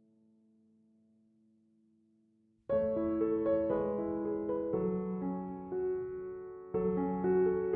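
Background piano music. It starts suddenly after a couple of seconds of faint held tones, and a new phrase begins near the end.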